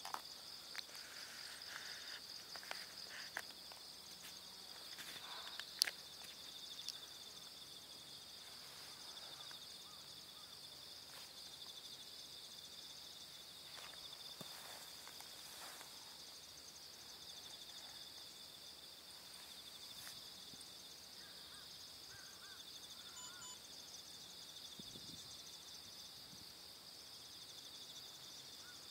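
Faint, steady insect chorus: a continuous high, finely pulsing buzz. A few light clicks and rustles come in the first six seconds.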